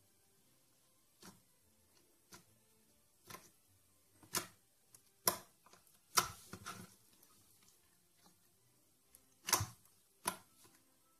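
Orange clear glue-and-borax slime being pressed and poked by fingers, giving a string of short, sharp pops and clicks as air pockets in it burst, irregularly spaced with a pause of a few seconds before the last two.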